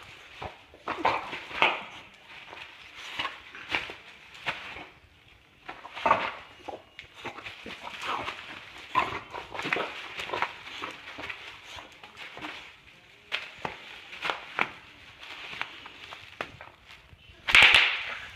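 A boxer dog attacking a sheet of bubble wrap on a tile floor: crinkling plastic with scattered sharp pops and clicks, and a loud dog sound near the end.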